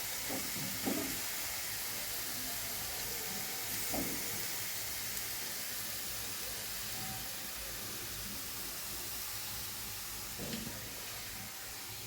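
Chicken filling sizzling steadily in a pan, with a few soft knocks about a second in, about four seconds in and near the end.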